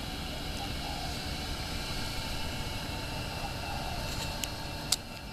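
Steady rumbling background noise with hiss, and a few sharp clicks near the end, the loudest about five seconds in.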